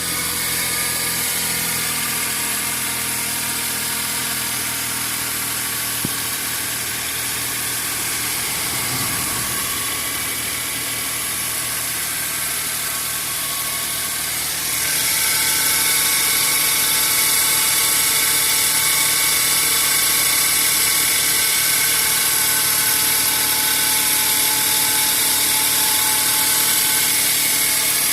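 Suzuki Jimny JB23's 660 cc three-cylinder engine running, with the abnormal noise of a failing belt tensioner pulley: a steady sound with several held high tones that gets louder about halfway through.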